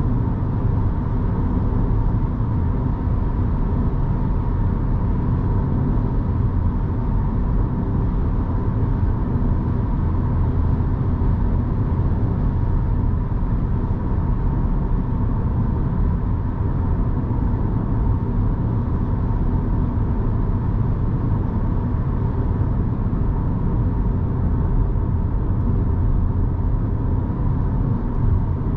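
Electric Mini Cooper SE on the move: a steady rumble of tyres and road, with no engine note, plus a faint steady tone in the upper range.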